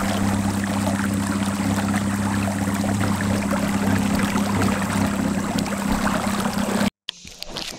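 Steady rush of water pouring through a lake spillway, with a low steady hum underneath. It cuts off abruptly near the end, followed by a few faint clicks.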